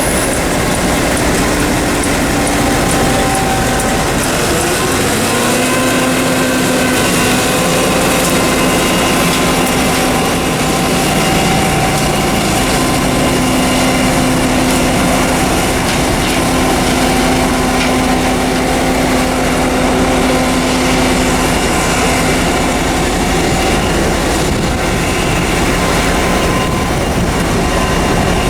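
Combine harvester running steadily, a loud mechanical drone with several whining tones that shift in pitch about five seconds in.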